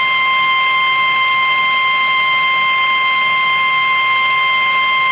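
Weather radio warning alarm tone: a single steady high-pitched tone held without a break over radio static hiss, the alert signal that comes before an emergency warning broadcast.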